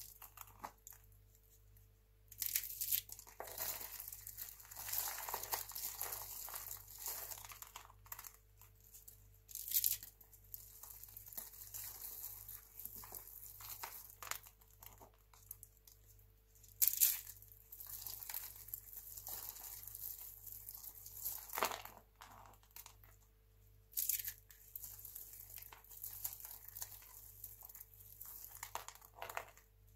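Dry, brittle recycled-soap roses crushed by hand into flakes: irregular crunching and crackling as the rolled soap breaks and the flakes rustle, with a few sharper, louder crunches.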